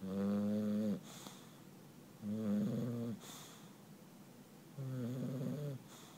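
English bulldog snoring in its sleep: three snores about a second long, roughly every two and a half seconds, each a low buzzing tone followed by a short breathy exhale.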